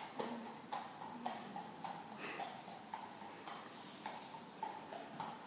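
Horse's hoofbeats at a working trot on a sand arena surface, a faint, regular beat about twice a second.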